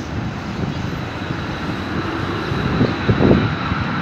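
Airbus A330 airliner's twin turbofan engines on landing approach: a steady jet rumble with a thin high whine, growing louder toward the end as the plane nears overhead. Gusts of wind buffet the microphone.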